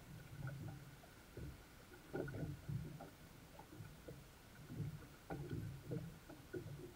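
Water lapping and slapping against the hull of a small boat lying still on calm water: irregular soft knocks and splashes, sometimes several close together.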